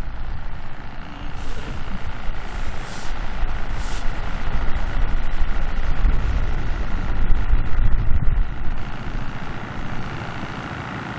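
Wind buffeting the microphone: a gusty, uneven low rumble that eases near the end.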